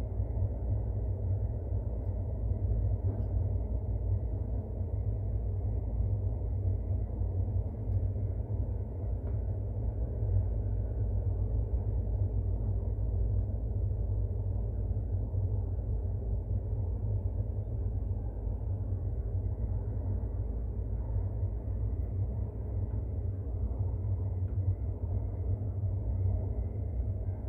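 AS 14 metro train running at speed, heard from inside the car: a steady low rumble from the wheels and running gear.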